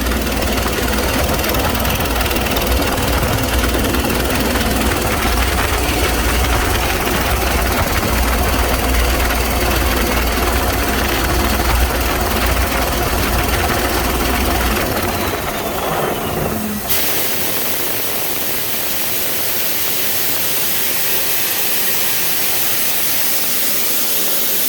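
Ingersoll Rand 21-bar, 750 cfm portable air compressor running, then its engine winds down and stops about 15 to 17 seconds in. A loud, steady hiss of air follows to the end.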